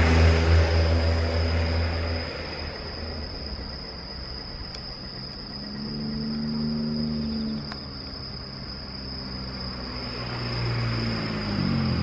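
Insects trilling in a steady high chirr, with vehicles passing on the road. One loud pass comes at the start and fades over the first two seconds, and quieter ones come around the middle and near the end.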